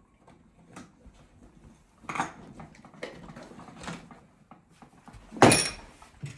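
Scattered knocks and clunks of tools and mounting hardware being handled, with a stronger knock about two seconds in and one loud, sharp clack about five and a half seconds in.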